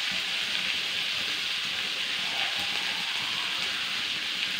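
Drumstick pieces, soaked cashews and onion sizzling in hot oil in a wok: a steady frying hiss.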